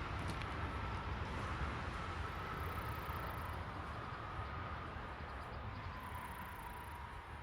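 A vehicle passing on the road, a steady rumble with a thin tyre whine that slowly falls in pitch and fades.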